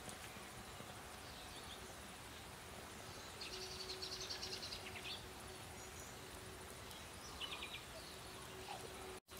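Quiet outdoor background with a faint hiss, broken by a rapid, high-pitched chirping trill about three and a half seconds in that lasts over a second, and a shorter one near the end, from small wildlife. A faint steady hum sits underneath from the middle on.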